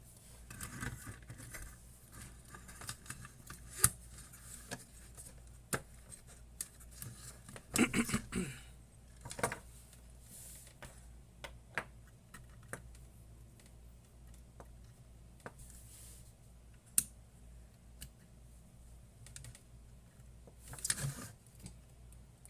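Scattered clicks, taps and light clatter of small electronic parts being handled, as a circuit board and its interconnect are fitted and wired up. The sharpest clicks come about 4 s, 9 s and 17 s in, with a denser bout of handling around 8 s and 21 s.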